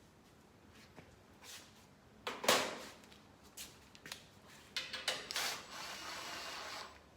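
Hand work on sheet-steel parts in a workshop: scattered knocks and clicks, a louder knock about two and a half seconds in, then about a second of steady scraping or rubbing near the end.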